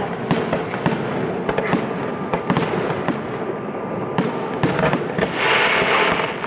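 Fireworks display: a steady run of bangs and crackling pops, turning into a dense hissing crackle about five seconds in.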